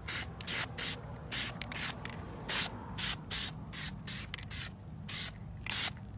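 Aerosol can of Plasti Dip rubber coating spraying in short hissing bursts, about two a second.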